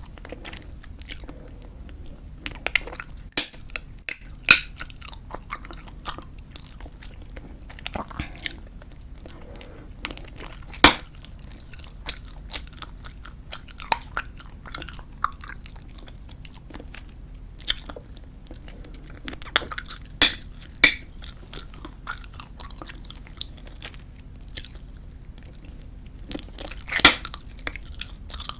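Close-miked chewing of squeeze-tube bubblegum: a steady run of small wet clicks and smacks, with several louder sharp snaps spread through.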